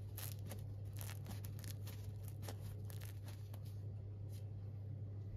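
Light crackles and rustles of hands handling slices of crusty whole-grain seeded bread, a scatter of small clicks over the first three and a half seconds, then only a steady low hum.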